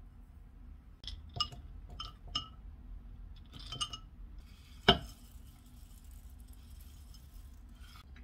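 Glass jars clinking against a glass bowl as chia seeds and almonds are tipped into yogurt: a handful of light clinks, then one loud sharp clink about five seconds in. A soft dry rustle follows as roasted oats are poured in.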